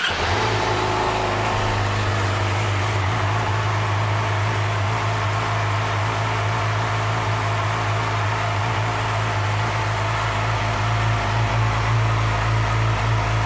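2011 Yamaha YZF-R6's 599 cc inline-four engine idling steadily, just after start-up, getting slightly louder about eleven seconds in.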